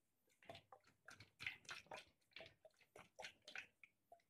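Near silence with faint, scattered small clicks and crackles, several a second, from a plastic cooking-oil bottle being handled over a plastic mixing bowl of flour.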